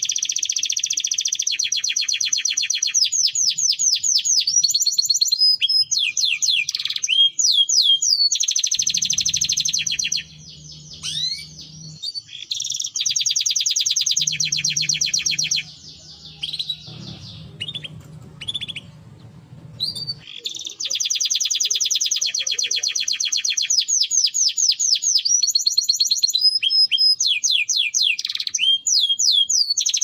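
Domestic canary singing: long, fast trills of rapidly repeated high notes broken by short sliding whistles, with two brief lulls about ten and sixteen seconds in.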